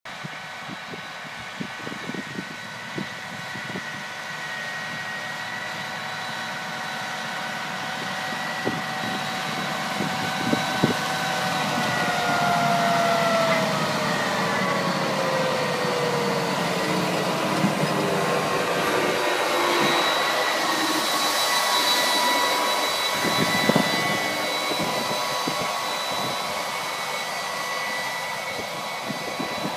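Large John Deere tractor's diesel engine running under load with a steady high whine, pulling a planter across a field. It grows louder as it approaches, and its pitch drops as it passes by about halfway through, then fades as it moves away.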